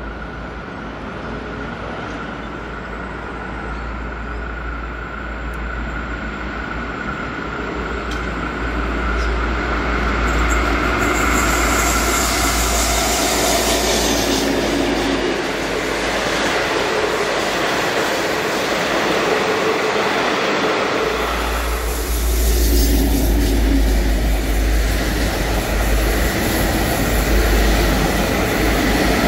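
V/Line passenger train hauled by N class diesel-electric locomotive N452, approaching and passing. The train grows louder over the first ten seconds and then stays loud, with a steady high whine in the first twelve seconds.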